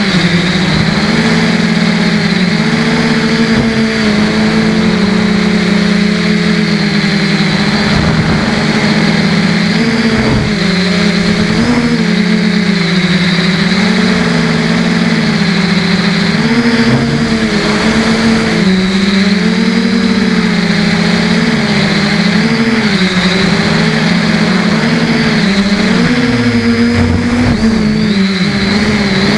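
Quadcopter's Emax brushless motors and propellers whining, heard from the onboard camera, the pitch wavering up and down with throttle changes, with a deeper drop in pitch a little before the end.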